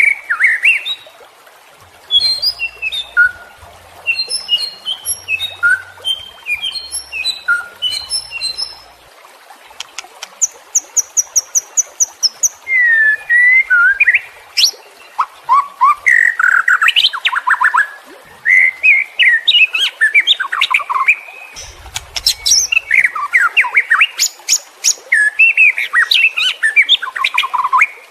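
White-rumped shama (murai batu) in full, agitated song: a long run of varied whistles, chatters and trills, broken by short pauses, with a quick series of about eight even, high notes near the middle.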